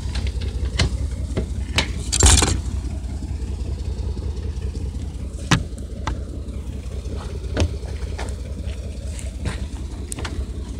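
A vehicle engine idling steadily, with scattered knocks and clatter from wooden boards being handled and a brief, louder scraping noise about two seconds in.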